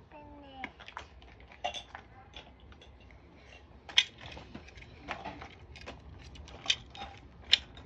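Scattered small clicks, taps and clatters of toys being handled, with sharp knocks about four seconds in and twice near the end. A child's voice sounds briefly at the start.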